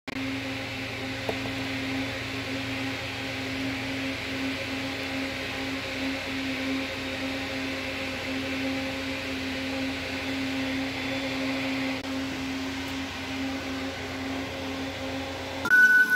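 Steady hum of a running electric motor with an airy hiss over it. Music starts abruptly near the end.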